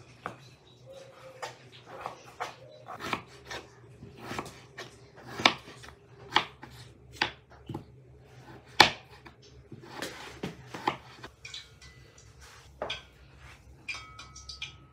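Irregular clinks and knocks of kitchen utensils and dishes during food preparation, roughly one a second, some sharp and loud.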